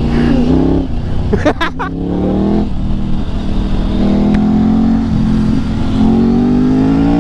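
Motorcycle engine accelerating hard: its note climbs in pitch, drops at each upshift and climbs again, three times over. A couple of brief sharp sounds cut in about a second and a half in.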